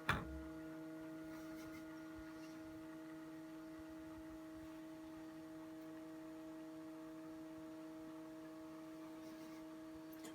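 A click, then the Whirlpool dishwasher's small motor humming steadily at one even pitch.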